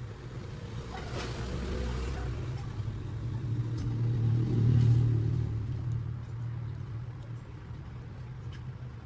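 Low rumble of a motor vehicle engine, swelling to its loudest about five seconds in and then fading, as a vehicle passing by does.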